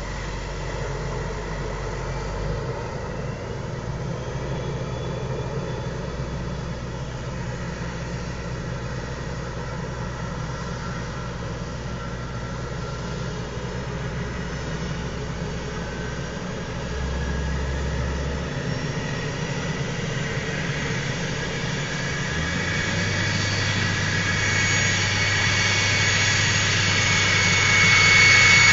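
Turbocharger on a Duramax 6.6 L turbo-diesel V8 whistling over the engine's low running sound, heard from inside the truck's cab. The whistle is loud even at low rpm, and it grows louder over the last several seconds as the revs rise.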